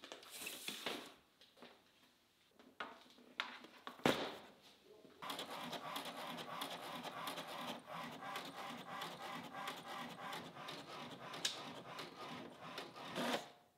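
A drafting machine's arm sliding on the drafting table, and a few sharp clicks, then an HP inkjet printer feeding and printing pages for about eight seconds, a steady rhythmic mechanical sound.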